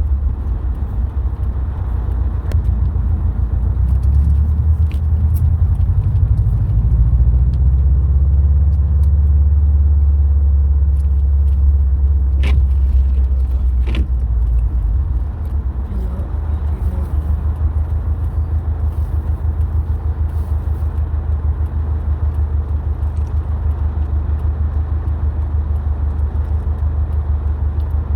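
Subaru WRX STI on the move: a low, steady rumble of engine and road noise that swells for several seconds around the middle, then settles. Two sharp clicks come about twelve and fourteen seconds in.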